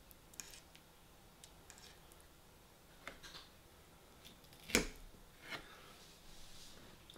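Metal fork clinking sharply against a ceramic plate once while scooping fish pie, amid a few faint clicks of the fork and eating.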